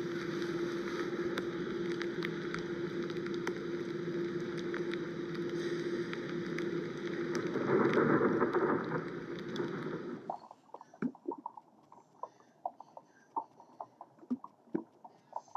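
Water splashing and churning at the surface over a steady hum, growing louder around eight seconds in. After about ten seconds this gives way to scattered sharp clicks and pops heard underwater.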